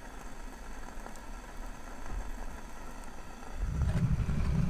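Steady low rushing of an alcohol stove's flame heating a thick-walled pan of water that is just starting to form small bubbles, not yet at the boil. A low rumble swells in the last second.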